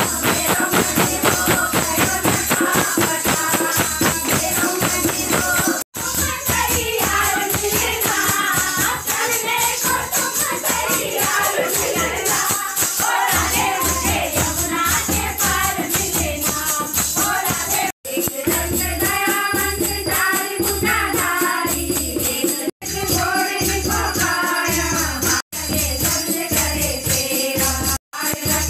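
Group of women singing a Hindu devotional kirtan bhajan to a tambourine's steady jingling beat. The sound cuts out for an instant several times.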